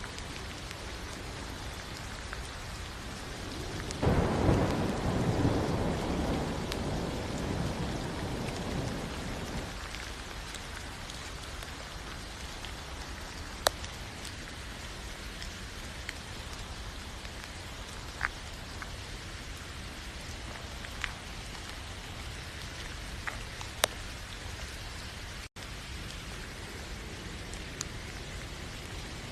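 Steady rain falling, with a low rumble of thunder starting about four seconds in that fades away over the next several seconds. A few sharp single drop hits stand out later, and the sound cuts out for an instant past the middle.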